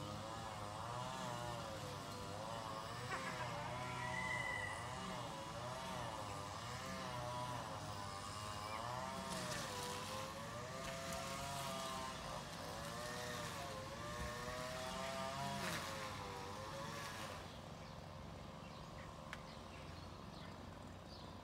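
Distant motorised grass cutter running, its engine pitch rising and falling about once a second as it works. Near the end the engine note fades to a fainter hum.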